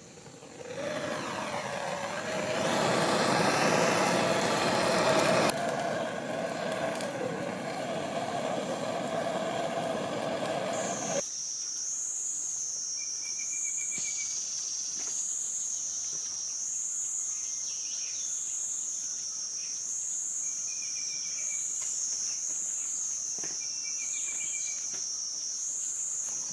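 A handheld gas-canister blowtorch runs with a steady roaring hiss, lighting a wood fire, and stops suddenly about eleven seconds in. After that an insect drones with a high buzz that wavers up and down about twice a second, and a bird gives a few short chirps.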